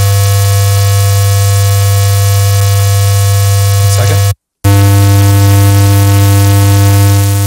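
Steady 100 Hz square-wave tone from a software test oscillator: a buzzy electronic tone of the kind old video-game sound effects used. It drops out completely for a moment about four and a half seconds in, then resumes.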